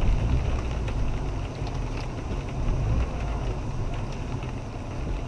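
Great Wall Hover SUV engine running with a steady low rumble.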